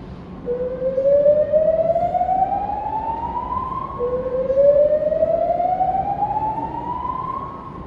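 Building fire alarm sounding its whoop tone: two long rising sweeps, each climbing for about three and a half seconds and then starting again from the bottom.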